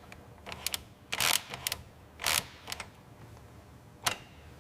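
A run of sharp mechanical clicks, some in quick pairs, with two short rasping snaps about one and two seconds in, and a last click near the end.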